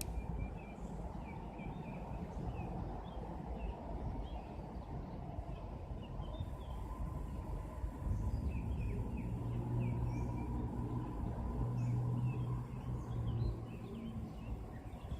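Small birds chirping over and over against a steady low rushing background of the river outdoors. A low steady hum comes in for several seconds in the second half.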